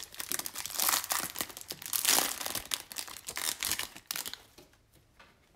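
Plastic wrapper of a football card pack crinkling and tearing as it is ripped open and pulled off the cards, dense crackling that dies down about four seconds in to light rustles.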